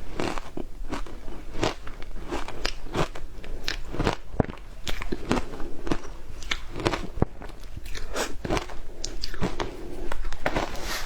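Frozen matcha ice being bitten and chewed, cracking and crunching between the teeth in a steady run of irregular crunches, roughly one or two a second.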